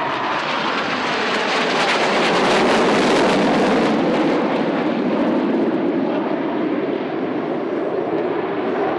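Jet noise from a formation of KAI T-50B jet trainers' turbofan engines flying overhead: a loud, continuous rushing sound, brightest about two to four seconds in, then settling to a deeper rumble.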